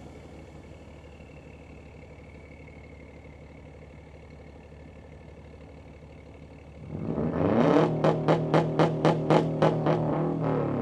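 BMW B58 turbocharged inline-six running quietly and steadily, then revving up hard about seven seconds in, with a run of about nine sharp, evenly spaced cracks, some four or five a second, over the held engine note.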